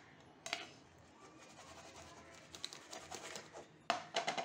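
Aluminium cake tin and plate handled while a cake is turned out: a light click, then faint scraping and rubbing of metal against the plate, and sharp knocks near the end as the upturned tin sits on the plate.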